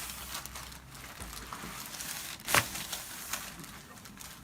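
Rustling and crinkling of a patient moving on a chiropractic table, with one sharp click about two and a half seconds in and a fainter one shortly after.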